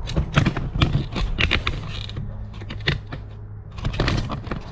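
Handling noise: a rapid run of clicks, knocks and rustles as the camera is picked up, moved and set down. The clicks come thickest in the first two seconds and again around four seconds in.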